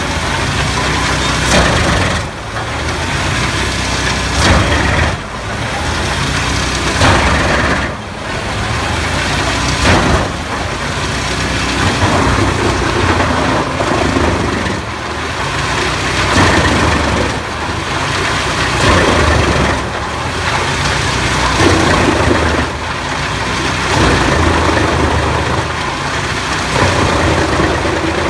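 Tractor-driven wood chipper running with the tractor engine, loud and continuous. Its loudness swells and dips every two to three seconds, with a few sharp cracks along the way.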